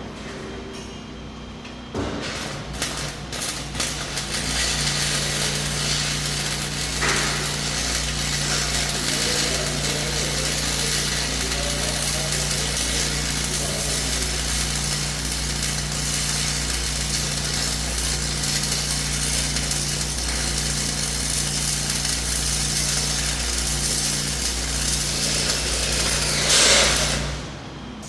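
Arc welding on steel: a steady, loud hiss with a low hum under it, starting about two seconds in and lasting some 25 seconds before it cuts off near the end.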